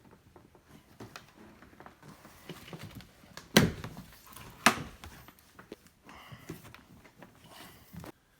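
Plastic front window of a ride-on toy car being snapped into place: two sharp clicks about a second apart near the middle, with light handling noise around them.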